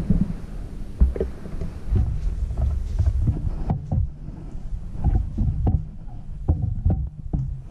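Camera handling noise: a low rumble with a string of irregular soft knocks and clicks as the camera is moved and set up.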